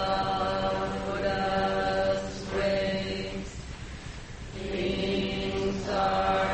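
Zen liturgical chanting: voices intoning slowly on one steady pitch, syllables drawn out into long phrases with brief pauses for breath, the longest a little after the middle.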